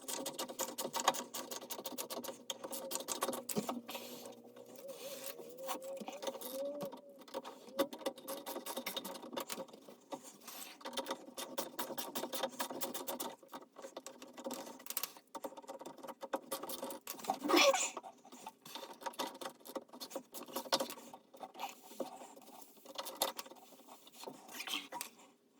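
Faint, busy small clicks and scrapes of hand tools and metal pipe fittings being worked and handled, with one louder knock about two-thirds of the way through.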